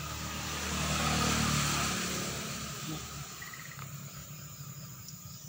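A motor vehicle passing by: its engine and road noise swell to loudest about a second in, then fade away by about three seconds.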